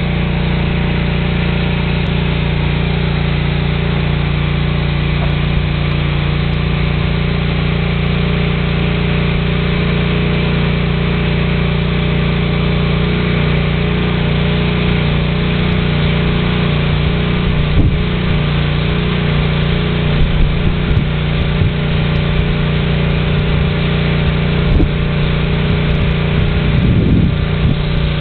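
A motor running steadily with an even, low drone, with a few light knocks in the second half.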